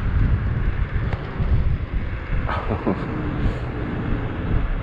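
Wind buffeting the microphone as a 72-volt, 5000-watt DIY electric bike is ridden flat out, with a brief falling whine about two and a half seconds in.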